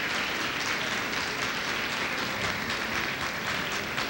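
Audience applauding, a dense steady clapping in which single claps stand out more toward the end.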